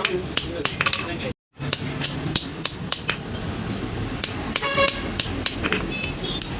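Hammer blows on iron rebar at an anvil during forging, a quick steady rhythm of about three to four strikes a second, some leaving a short metallic ring. The sound drops out completely for a moment about one and a half seconds in.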